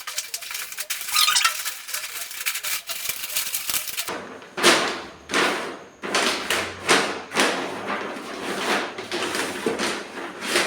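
Brown wrapping paper crinkling and rustling as it is pressed onto a cardboard box and wrapped around it, with small clicks of handling. The crinkling gets louder about four seconds in and goes on in repeated swishes.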